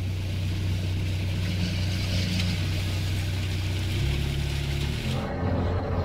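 Sherp all-terrain vehicle's diesel engine running steadily, with a hiss over the engine hum; about four seconds in the engine note steps up as it revs.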